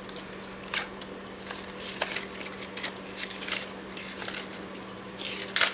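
Pages of a spiral-bound cartridge handbook being handled and turned: soft paper rustles and light clicks, with a louder page swish near the end. A steady low hum runs underneath.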